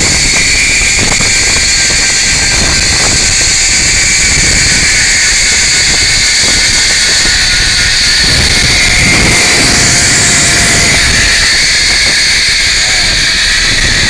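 Zipline trolley pulleys running fast along the steel cable with a steady high whir, over wind buffeting the microphone.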